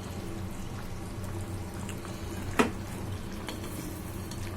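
Mutton chops in masala gravy bubbling as they boil in a pan, over a low steady hum, with one sharp clink a little past halfway.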